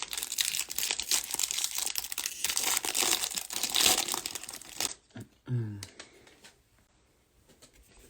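Crinkly plastic-foil trading card pack wrapper being torn open and crumpled, a dense crackling for about five seconds that then gives way to quieter handling.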